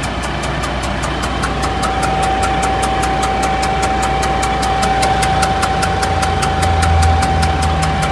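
KAMAZ K5 truck's Liebherr-derived diesel engine idling with a fast, even ticking. The ticking is taken for a head gasket blown between the second or third cylinder, with air leaking and knocking there. A steady high whine runs along with it.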